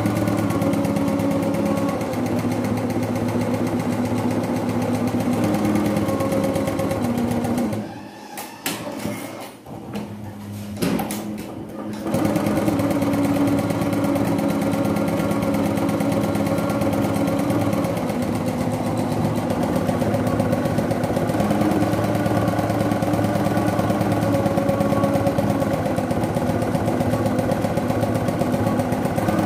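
Computerised multi-needle embroidery machine running, a steady fast needle clatter with a hum under it. About eight seconds in it drops away for some four seconds, with a few clicks, then runs steadily again.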